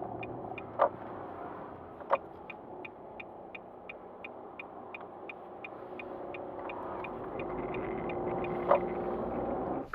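Nissan Note e-Power Nismo S heard from the cabin while moving slowly, its running sound swelling for the last few seconds, with an even ticking about three to four times a second and three sharper knocks. The abnormal noise is one the owner suspects comes from the front running gear, a drive shaft or front hub bearing.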